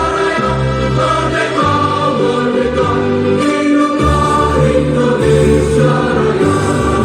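Music with a choir singing long held notes over a heavy bass accompaniment.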